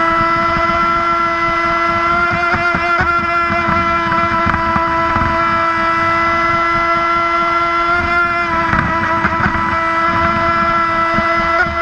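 Brushless electric motor of a fast RC mono hull boat running at a steady high speed, a high whine holding nearly constant pitch over a rush of water and wind noise, briefly unsettled about three-quarters of the way through.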